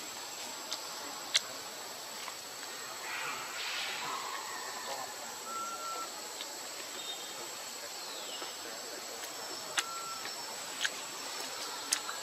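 Forest ambience: a steady high insect-like hiss, with a few short whistled notes and one short falling chirp. There is a brief rasping swell about three seconds in, and a few sharp clicks, the strongest near the end.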